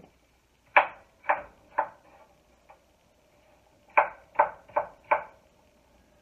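Knife chopping apple pieces on a wooden cutting board: three sharp strokes about a second in, then four more in quick succession about four seconds in.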